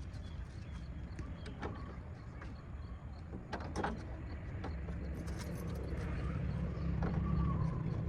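Scattered clicks and knocks of plastic grille parts being handled and fitted, over a low rumble that grows louder in the second half.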